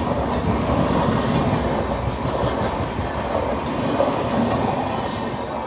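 Express train running on the rails, heard from an open coach door: a steady rumble of wheels and running gear with irregular clatter over rail joints.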